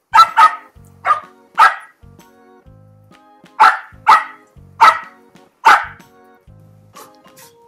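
Shetland sheepdog barking at a spraying lawn sprinkler in play. There are about eight sharp single barks, mostly in quick pairs: four in the first two seconds, then four more after a pause.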